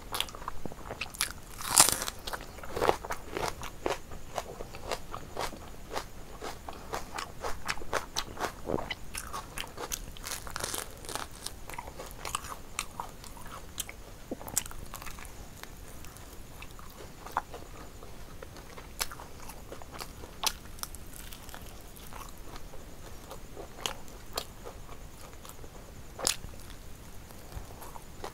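Close-up eating sounds of biting into and chewing a crispy fried chicken leg: wet chewing with crunchy, crackling bites. The clicks and crunches are dense in the first half, with one sharp loud crunch about two seconds in, and grow sparser later.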